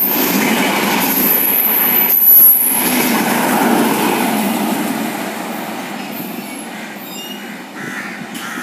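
LHB coaches of an express train rolling through at speed, wheels running over the rails with a thin high whine, and a brief louder clatter about two seconds in. The last coach, a luggage van, passes about halfway through, and the rolling noise then fades as the train moves away.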